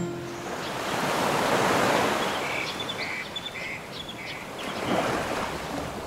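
Sea waves washing in, swelling up twice, with a few faint short high chirps in the middle.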